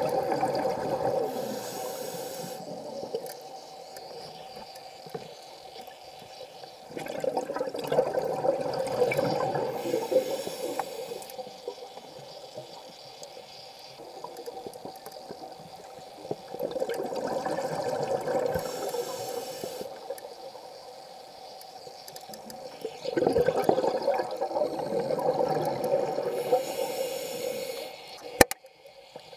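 A scuba diver's regulator breathing, heard underwater: four slow breaths, each a hiss and a long burble of exhaled bubbles, with quieter pauses between them. A sharp click near the end.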